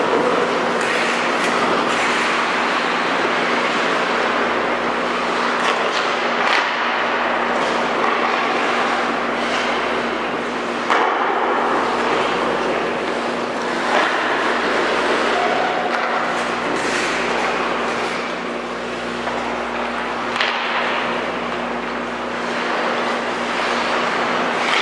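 Ice hockey rink sounds: a steady hiss of skates on the ice over a constant low hum, with a few sharp clacks of sticks and puck.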